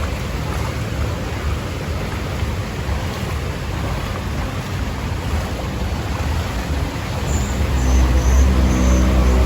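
Steady rushing noise of traffic and water on a flooded street, with a vehicle engine coming close and getting louder about two seconds before the end.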